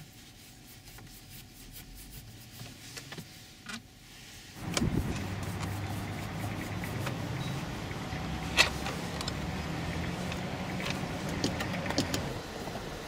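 Faint clicks of a screwdriver working the screws of a Toyota RAV4's steering column cover. About four and a half seconds in, a steady low hum comes on suddenly inside the car and continues, with occasional sharp clicks and taps of the tool.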